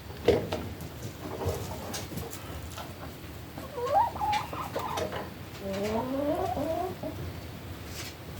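Chickens calling: a short rising call about four seconds in and a longer call of rising notes near the end, with a few light knocks.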